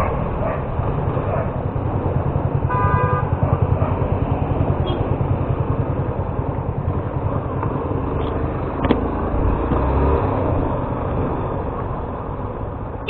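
Motorcycle engine running on the road with a steady low pulsing rumble. A short horn toot sounds about three seconds in.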